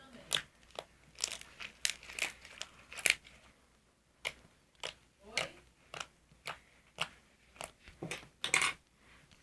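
Homemade slime being squeezed and stretched by hand, making a run of short sticky crackles, about one or two a second.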